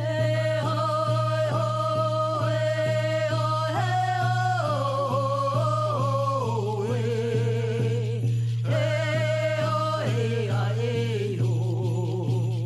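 A song with a voice singing long held notes, over a steady low drone and an even shaken-rattle beat.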